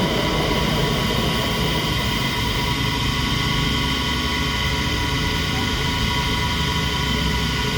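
A workshop machine running steadily: a low rumble with several steady whining tones above it.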